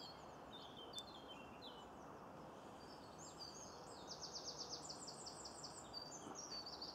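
Small songbirds singing faintly over a steady background hiss: scattered short high notes, then a fast trill of repeated notes about four seconds in.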